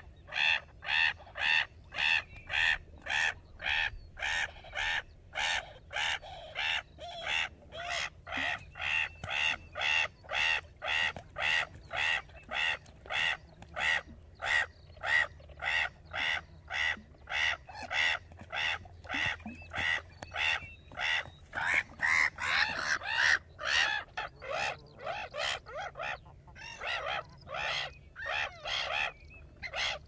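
Gull calling over and over, short calls repeated about twice a second at an even pace, with a low steady hum beneath.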